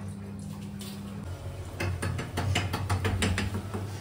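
A quick run of sharp metallic clicks and clatters at a kitchen stove and its metal pan, starting about halfway through, over a steady low hum.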